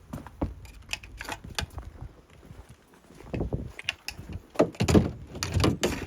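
Knocks and clatter of a broken laminator's plastic parts being handled and pulled apart, scattered at first and then a louder run of knocks in the second half.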